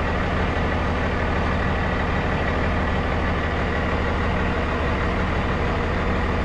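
Straight-piped semi-truck diesel engine with no mufflers running at a steady pitch. It is heard inside the cab with the windows down as an even, unbroken drone.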